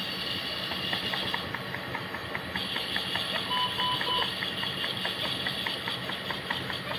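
Steady hiss of air or oxygen flow, pausing for about a second early on, with a faint run of short regular monitor beeps about two or three a second and a brief trio of higher beeps in the middle, over a low hum of NICU equipment.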